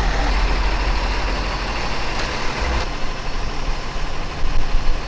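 A large truck's diesel engine idling steadily.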